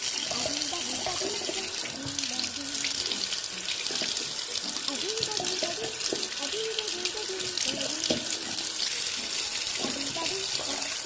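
Bathroom sink tap running steadily, water splashing as a cup holder is rinsed under it.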